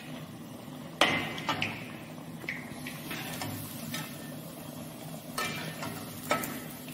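Metal skimmer and spoon knocking and scraping against an iron kadhai while noodle-coated rolls deep-fry, about six knocks with the loudest about a second in, over a faint sizzle of oil at low-medium heat.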